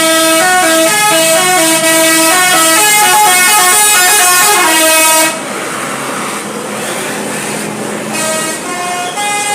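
Bus 'telolet basuri' musical horn playing a fast stepping melody, several horn notes sounding together, loud for about five seconds before it stops. After that, road noise, with a few more horn notes near the end.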